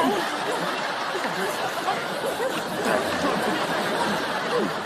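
Sitcom studio audience laughing: a steady wash of many voices laughing together, swelling in right at the start.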